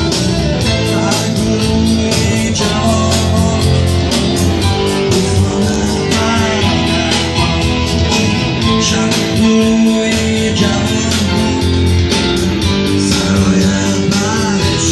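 Live music with guitar, loud and continuous, with a voice singing a wavering melody at times.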